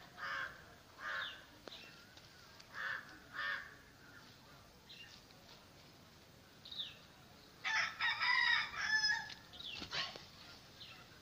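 Outdoor bird calls: several short, separate calls in the first few seconds, then a rooster crowing once about eight seconds in, the loudest sound.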